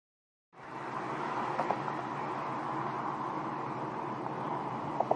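Steady road and wind noise inside a car moving at speed on a highway, starting after about half a second of silence, with a couple of faint clicks.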